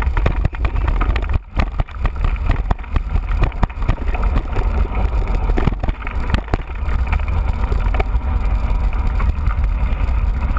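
Mountain bike being ridden, heard from a camera on the bike or rider. Wind buffets the microphone as a steady low rumble, with frequent short knocks and rattles from the bike.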